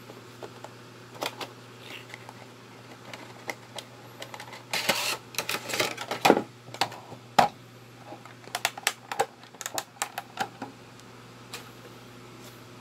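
Cardboard Funko Pop box being handled and opened: scattered sharp taps and clicks, with a longer scraping rustle about five seconds in as the contents are slid out.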